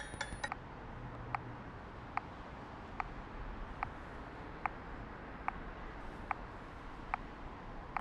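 Wood-block percussion stops about half a second in. A steady background hiss follows, with a sharp, regular tick a little more than once a second.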